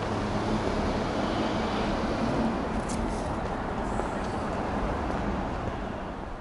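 Steady low rumble of road traffic noise, with a faint engine hum running through it.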